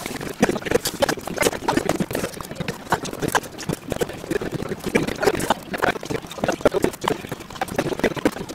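Busy dining-table clatter: many quick, irregular clinks and knocks of bowls and chopsticks, mixed with indistinct voices of people eating.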